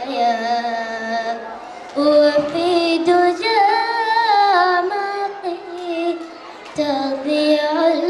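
A young girl singing solo into a microphone: long held notes with curling melodic runs, with short breaks for breath about two seconds in and again near seven seconds.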